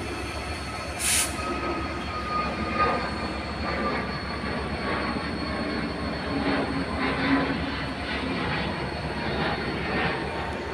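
Jet airliner passing overhead: steady engine noise with a faint whine that slowly falls in pitch. A short hiss sounds about a second in.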